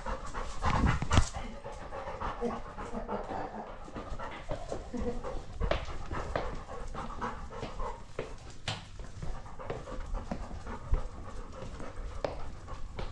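English Labrador Retriever panting, heard up close from a camera strapped to his body, with a few sharp knocks as the camera bumps during his movement.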